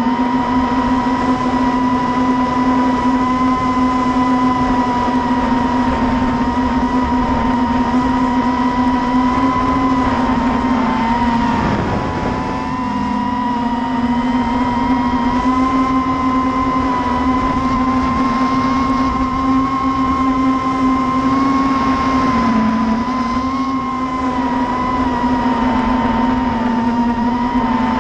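ImmersionRC Vortex FPV racing quadcopter's brushless motors and propellers whining steadily, heard from the onboard camera with wind rush. The whine's pitch dips briefly twice, about twelve seconds in and again near twenty-two seconds.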